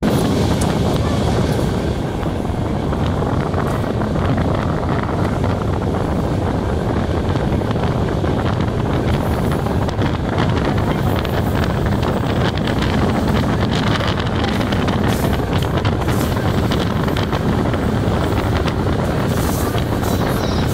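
Heavy wind buffeting the microphone over the steady running noise of a moving ČD class 451 'Pantograf' electric multiple unit, loud and unbroken throughout.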